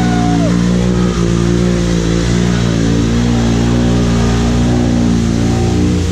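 Side-by-side UTV engine running at a steady speed, an even drone that holds throughout.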